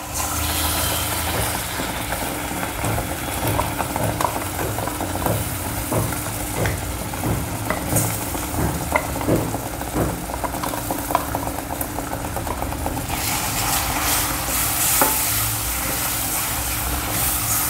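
Spinach purée sizzling in a hot steel kadhai over fried onion and besan masala while a wooden spatula stirs it: a steady sizzle with frequent light scrapes and taps, the sizzle growing brighter a few seconds before the end.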